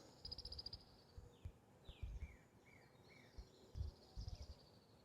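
Faint birdsong: a quick high trill of about ten notes, then a run of short downward-slurred whistles, over scattered low bumps on the microphone.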